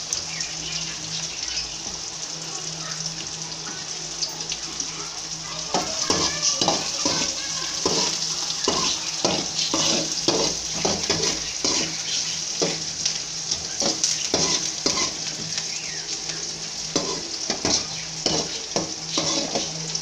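Chopped onions sizzling in hot oil in a metal kadai. From about six seconds in, a spatula scrapes and knocks against the pan at about two strokes a second as the onions are stirred and sautéed.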